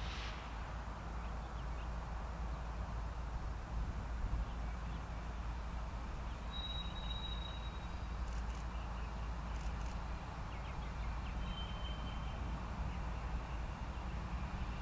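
Steady low rumble of a distant freight train slowly approaching behind a GE ET44AH diesel locomotive. Birds call over it: two short high whistled notes, one about a third of the way in and one later, plus a few faint chips.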